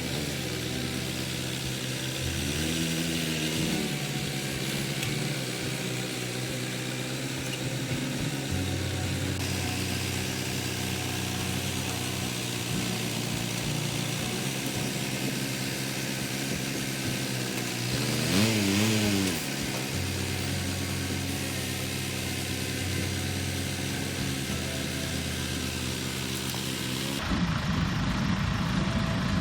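John Deere 410 backhoe's diesel engine running steadily, briefly revving up about three seconds in and again, louder, about eighteen seconds in. Near the end a rougher, noisier sound takes over.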